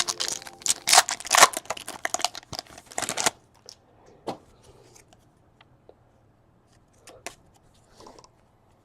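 Baseball card pack packaging being torn open and crinkled for about three seconds, then a few light clicks and taps as the cards are handled.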